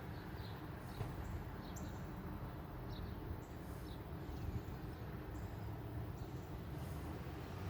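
Outdoor background noise: a steady low rumble with a few short, high bird chirps scattered through it.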